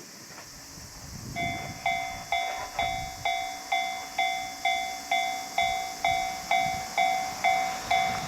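Japanese railway level-crossing warning bell starting up about a second and a half in, an electronic ding repeated about twice a second, the signal that a train is approaching. Under it, low wind-like rumble.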